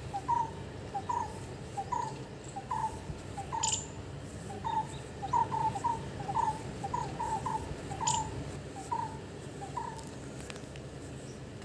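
An animal giving short, repeated calls of a similar pitch, some single and some in quick runs of two or three, which stop about ten seconds in. Two brief, sharp, higher chirps come through at about four and eight seconds, over a low steady background rumble.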